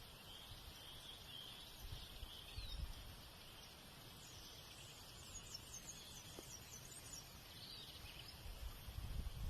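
Faint outdoor ambience: a steady insect drone with a few bird chirps, over low rumbling gusts that grow stronger near the end.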